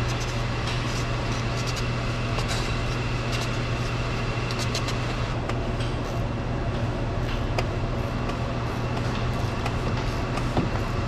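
Steady low mechanical hum with a faint high whine, with scattered light clicks and taps of parts being handled.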